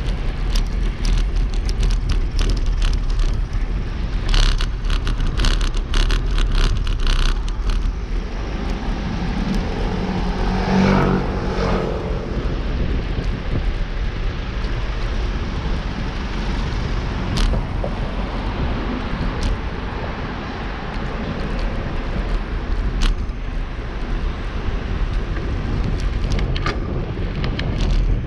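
Road traffic and wind rumble picked up on a moving bicycle's camera microphone. There are rattling clicks over the first eight seconds, and a motor vehicle passes close about eleven seconds in.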